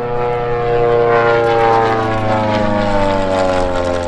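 Propeller engine of a Rutan-designed canard pusher homebuilt aircraft making a low, fast flyby. Its pitch falls steadily from about a second and a half in as the aircraft passes and moves away.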